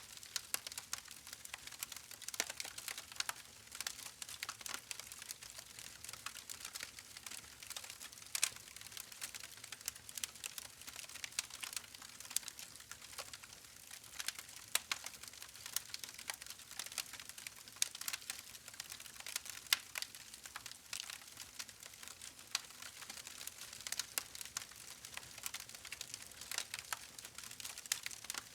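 Campfire crackling: wood burning with a steady stream of small irregular pops and snaps over a soft hiss.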